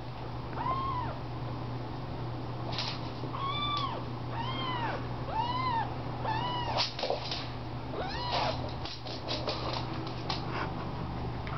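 Young kitten meowing, about six short high-pitched mews that each rise and fall in pitch, spread a second or so apart.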